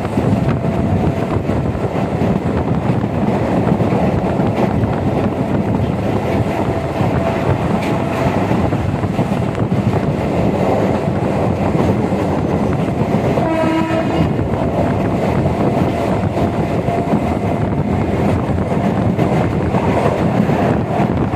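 A train running along the track with a steady rumble. Its horn sounds once, briefly, about two-thirds of the way through.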